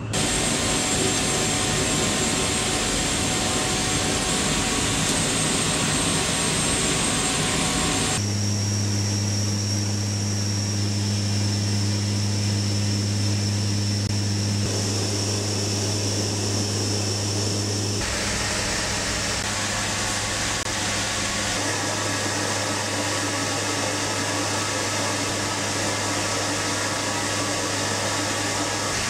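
Steady drone of C-130 turboprop engines that changes abruptly twice. From about 8 seconds in it is heard from inside the cargo hold as a strong low hum with a thin high whine above it.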